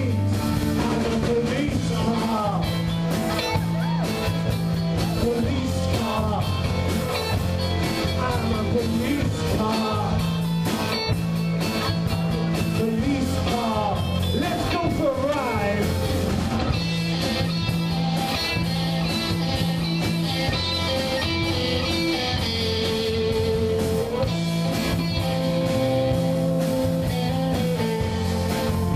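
Live rock band playing an up-tempo punk rock-and-roll song: distorted electric guitars, electric bass and a Yamaha drum kit, with a man singing over them.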